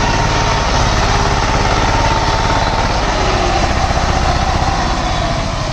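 A small engine running steadily with a fast, even low throb and a whine that drops slightly in pitch near the end.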